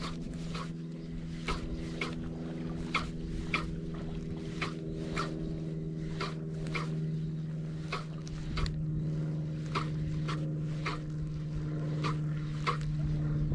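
A steady low motor hum, with sharp ticks about twice a second over it.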